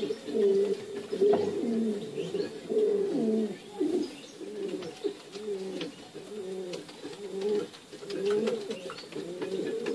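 Pigeons cooing: an unbroken run of low, rolling coos with short breaks between phrases.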